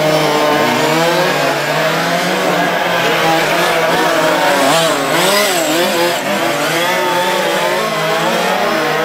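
Several 1:5 scale RC race cars lapping together, their small two-stroke petrol engines revving up and down. The engines sound as a continuous chorus of overlapping, shifting whines.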